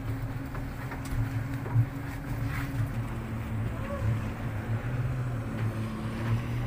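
Speedboat's twin outboard motors idling steadily, with a single knock about two seconds in.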